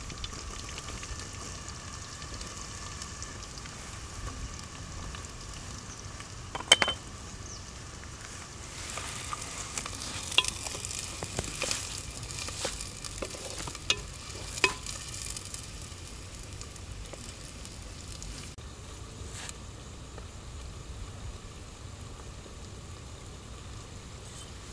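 Chopped onions and green chillies sizzling in hot oil in a clay pot as they are stirred. A few sharp clicks and knocks come between about six and fifteen seconds in, the loudest about seven seconds in.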